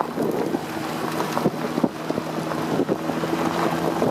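A vehicle driving on a gravel road: tyres rolling over loose stones with a few sharp clicks, a steady engine hum, and wind noise on the microphone held out of the window.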